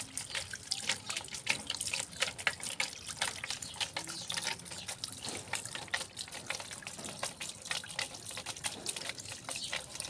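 Water jet of a small fountain spouting up and falling back into its shallow basin: a steady patter of irregular splashes and drips.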